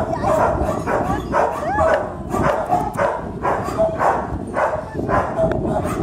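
A dog vocalizing in a rapid run of short calls, about two a second, their pitch sliding up and down, as its belly is rubbed. Wind rumbles on the microphone throughout.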